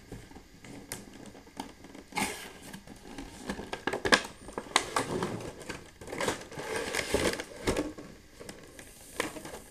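Cardboard action-figure box and its clear plastic blister tray rustling, scraping and clicking as the box is opened and the tray slid out, with a sharp click about four seconds in.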